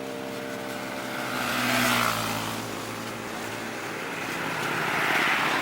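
Road vehicles passing by: a fading engine hum, then two passes about two and five seconds in, each a rush of sound that swells and fades.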